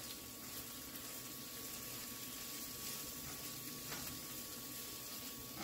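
Vegetables sautéing in a skillet, a steady soft sizzle, with a few light taps of a spatula stirring them.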